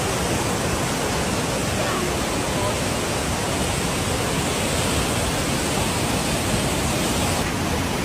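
Floodwater rushing past in a steady, loud, unbroken roar of moving water.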